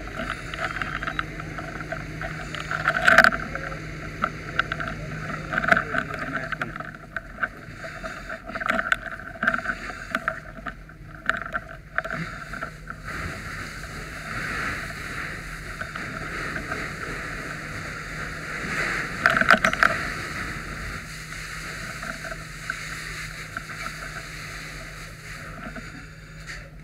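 Water spraying from a fire hose nozzle: a steady hiss with louder surges about three seconds in and again near twenty seconds, with scattered knocks. A steady low hum runs underneath and drops out for a few seconds in the middle.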